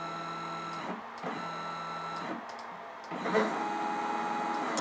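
A stepper motor on the bench test is being run in short jogs by its driver. It gives a steady whine that stops briefly about a second in, runs again, stops near the two-and-a-half-second mark, and starts again about three seconds in at a lower pitch.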